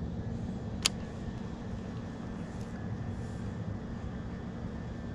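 Steady low wind rumble on an action camera's microphone, with one sharp click a little under a second in.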